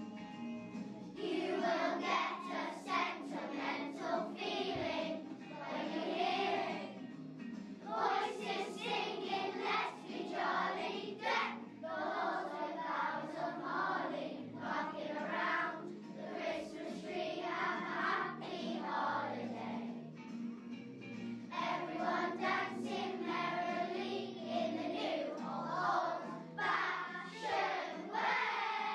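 A group of children singing together in unison over a musical accompaniment, in phrases with short breaks between them.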